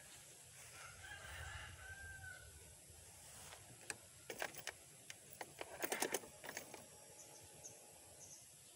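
A rooster crows faintly in one arched call about a second in. Then comes a quick run of sharp clicks and knocks around the middle.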